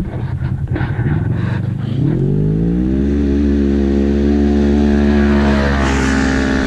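Polaris RZR RS1 and Arctic Cat Wildcat XX side-by-sides drag racing. About two seconds in, their engines rev up and hold a high, steady pitch at full throttle, growing louder as they close in. A rush of tyre and dirt noise comes near the end as they pass.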